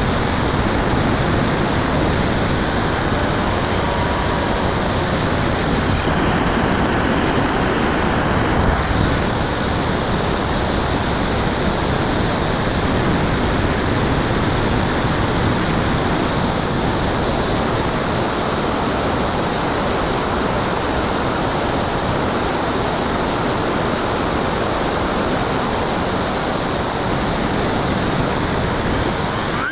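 Steady wind rush on the plane's onboard camera with the high whine of the Bixler 2's brushless motor and propeller in flight. The whine drops out for a few seconds about six seconds in, climbs in pitch just past halfway, and falls back near the end.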